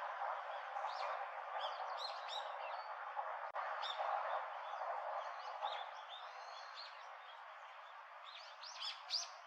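Birds calling with many short, high chirps over a steady hiss of background noise, ending in a quick run of louder, sharper notes.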